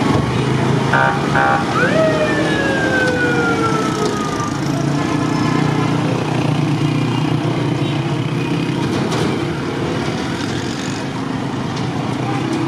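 Two short horn toots, then a siren-style wail that rises sharply and falls slowly over about two and a half seconds, above the steady din of a street crowd and motorcycle engines.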